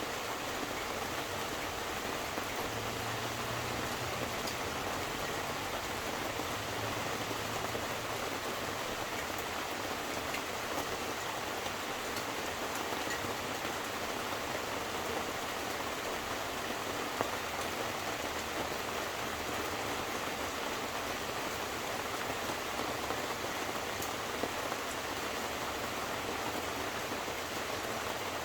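Steady rain falling, an even hiss with a few sharper drops ticking now and then.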